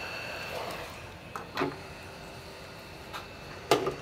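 Hot-air rework gun's blower hissing with a thin steady whine that stops within the first second. A few knocks and clicks follow as tools are handled on the bench, the loudest near the end.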